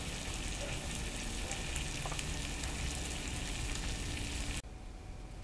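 Ground beef frying in a pan with a steady sizzle, which cuts off suddenly near the end.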